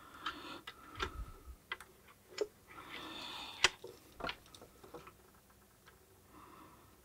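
Small irregular clicks and ticks of metal and plastic parts handled by hand as a desoldering iron's handpiece is taken apart to remove its heater. A short rustle about three seconds in ends in one sharper click.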